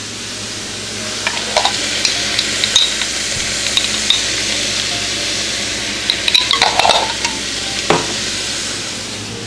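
Kale, peppers and mushrooms sizzling steadily in a stainless steel sauté pan on low heat, with a metal spoon clinking and scraping against the pan in two spells, once a second or so in and again around six to eight seconds in, as dried basil goes in.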